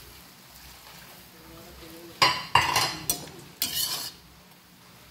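A utensil stirring vegetables in a metal pan, scraping and clanking against it in four quick strokes about two seconds in.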